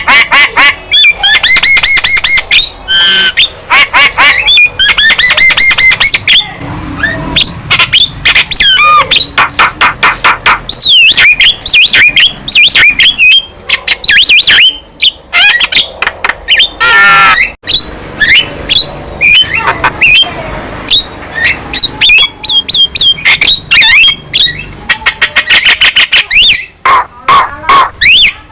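Young Javan myna singing continuously: a loud, fast string of whistles, chattering notes and harsh squawks, with short pauses between phrases.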